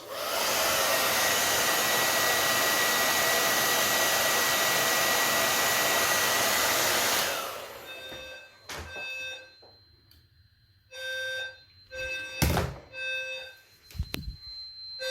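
A handheld hair dryer blows steadily for about seven seconds to heat a heat detector, then is switched off. Shortly after, the detector has tripped and the fire alarm sounds a low, buzzy tone in short pulses, in groups of three, with a couple of knocks among them.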